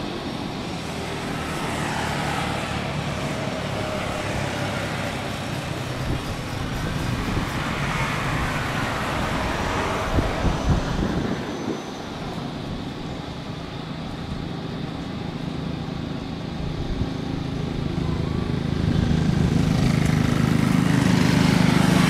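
Airbus A330's twin jet engines at takeoff power during its takeoff roll, a steady distant rumble that grows louder over the last few seconds as the airliner comes closer.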